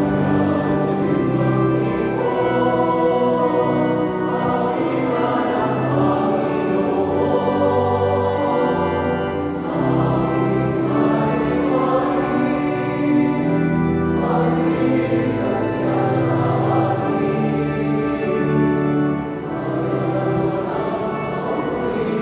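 Choir singing a hymn in long, held notes: the entrance hymn as the clergy process in at the start of a Catholic Mass.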